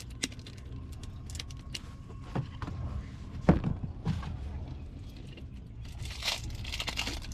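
Handling noise: scattered clicks and taps, with a sharp knock about three and a half seconds in and a stretch of rustling and crinkling near the end.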